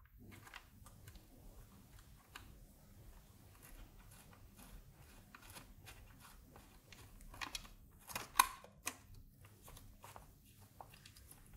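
Faint small clicks and scrapes of small nuts being unscrewed by hand from bolts, with two sharper clicks a little past the middle.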